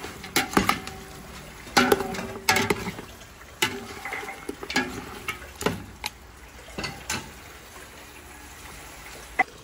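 Metal spatula scraping and knocking against a stainless steel pot as chicken pieces are stirred and sautéed, over a steady sizzle of frying. The knocks come at irregular intervals and thin out toward the end, with one sharp click near the end.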